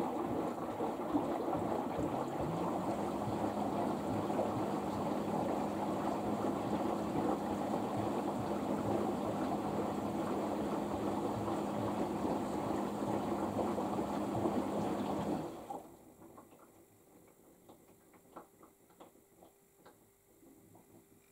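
LG AiDD Steam front-loading washing machine in its final rinse: water sloshing in the turning drum, with a steady hum joining a few seconds in. The sound stops abruptly about fifteen seconds in, leaving only faint ticks and a low hum.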